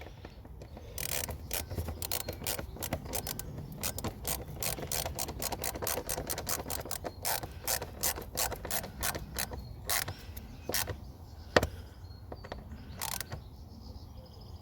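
Hand ratchet clicking in uneven runs of several clicks a second as a fastener is tightened, with a couple of louder knocks near the end.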